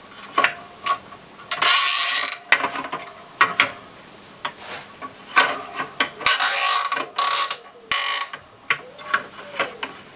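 Plastic cable tie pulled tight through its ratchet head in several short rasping pulls, with small clicks and knocks of handling between them.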